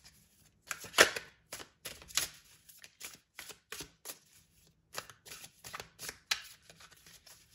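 A deck of tarot cards being shuffled by hand: a run of quick, irregular card flicks and snaps, the loudest about a second in.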